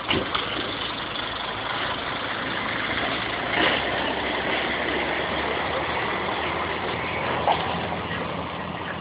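DAF 95XF truck's straight-six diesel engine idling steadily, with a couple of brief louder noises about three and a half and seven and a half seconds in.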